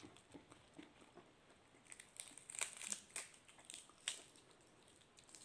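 Crisp lettuce leaves being torn and crumpled by hand: faint crackling snaps, busiest a little after the middle.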